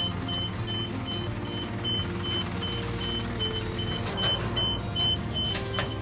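Isuzu Elf truck idling, its engine a steady low hum, while a high-pitched electronic warning beeper on the truck sounds rapidly and evenly, about four short beeps a second.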